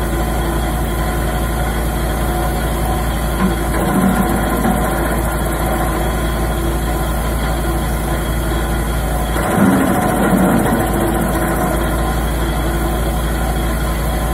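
Petrol engine of an Arpal AM-80BD branch chipper running steadily at speed. Twice, about four seconds in and again about nine to ten seconds in, the sound turns briefly louder and rougher as a branch is fed in and chipped.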